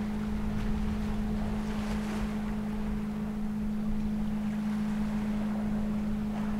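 A steady low hum of ship's engines carries across the water, unchanging throughout, with wind buffeting the microphone.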